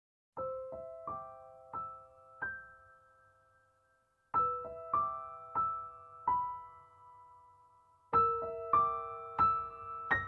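Gentle, slow piano music: three short phrases of four or five ringing notes each, every phrase fading before the next begins.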